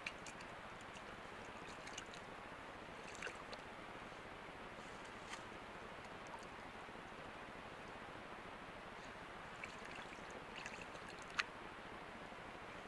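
Steady hiss from a trail camera's microphone, with a few faint crackles and clicks from a white-tailed deer stepping through dry fallen leaves; the sharpest click comes near the end.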